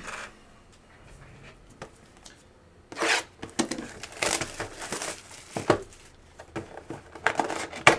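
Trading card pack wrappers being torn open and crinkled: a run of sharp tearing and rustling from about three seconds in, after a quieter start.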